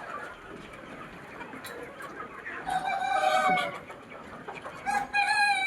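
Chickens clucking, with two long drawn-out crowing calls, one about three seconds in and another starting near the end.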